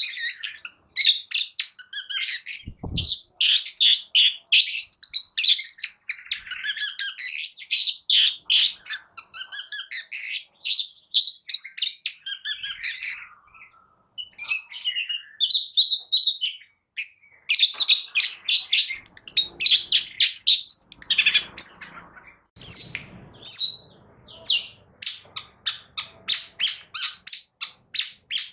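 Long-tailed shrike (cendet) singing in full, fast song: a dense, nearly unbroken stream of short, harsh chattering notes and rapid trills, with a brief low thump about three seconds in.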